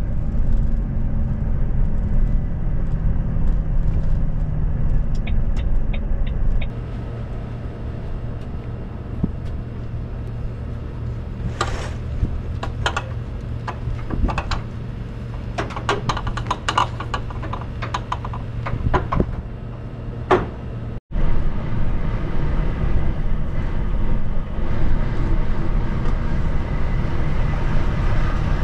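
Articulated lorry's diesel engine running with a steady low drone while driving, then a run of sharp clicks and knocks around the parked truck at the delivery yard, and the engine running steadily again near the end.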